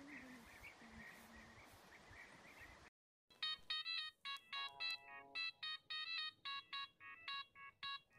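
Faint background for about three seconds, then a mobile phone ringtone starts, playing a quick melody of short electronic notes over and over.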